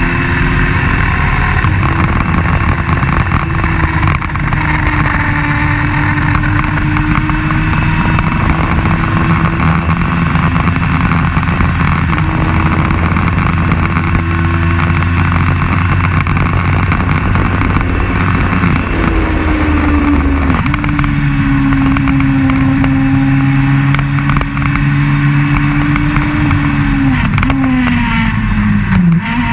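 Open-wheel race car's engine running hard at high revs, heard from on board the car. Its pitch holds fairly steady with small rises and falls, steps up once just before the twenty-second mark, then falls sharply near the end as the driver lifts off and rises again right at the close.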